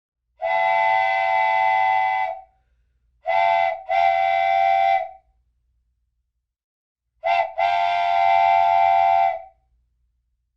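Train whistle blowing in loud, steady blasts: one long blast, then twice a short toot running straight into a long one.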